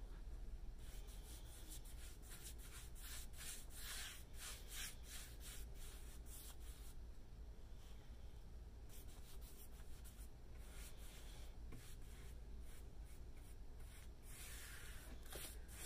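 Paintbrush strokes laying a wet liquid-wood coating onto a painted wooden tabletop: a faint, quick swishing in runs of several strokes a second, with a pause partway through.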